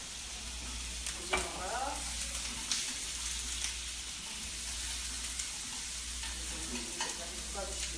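Squid pieces and sliced onion sizzling in an oiled frying pan with a steady hiss as they are stir-fried with chopsticks, the chopsticks clicking against the pan a few times.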